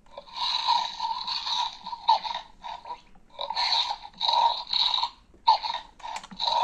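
Play-Doh Dino Crew Crunchin' T-Rex toy playing its electronic dinosaur sound effects through its small built-in speaker, set off as its head is pushed down to chew the dough. The sounds come as a quick string of about ten short bursts, each under a second.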